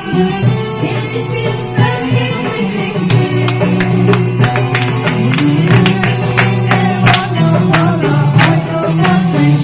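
Background music: a song with singing and a steady percussive beat.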